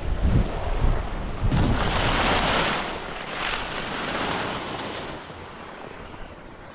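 Wind buffeting the microphone during a downhill ski run, with skis hissing over packed snow. The rumble and hiss die down over the last few seconds as the skier slows to a stop.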